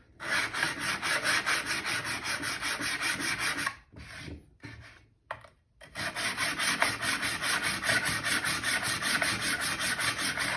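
A hand plane's lever cap is rubbed back and forth on 400-grit abrasive paper to flatten it. Two runs of quick, even scraping strokes are separated by a pause of about two seconds midway.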